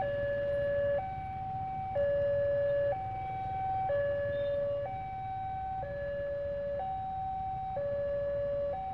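Railway level-crossing warning alarm sounding while the barrier is lowered for an approaching train: two electronic tones alternating high and low, each held about a second, over a low rumble of engines.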